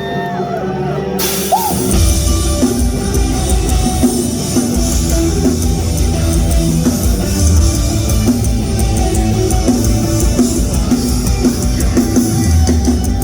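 Live rock band playing a song's instrumental intro, loud and vocal-free; about a second in the full band crashes in with drums, cymbals, distorted guitars and bass.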